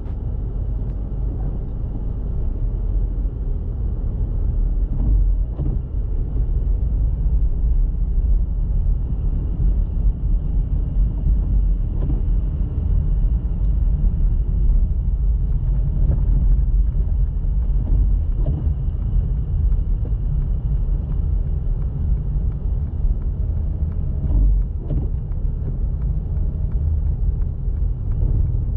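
A car driving: steady low road and engine rumble, with a few brief light knocks.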